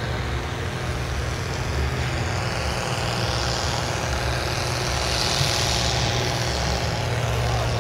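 Heavy diesel tractor engines running steadily, one working under load as it pulls on the pulling track, with other tractor engines running close by.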